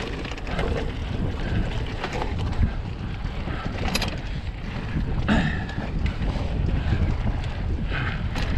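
Wind buffeting the camera microphone over the rumble of a hardtail mountain bike's tyres rolling fast down a dirt singletrack, with a few sharp clicks and knocks from the bike over bumps, about four seconds in, at five seconds and near the end.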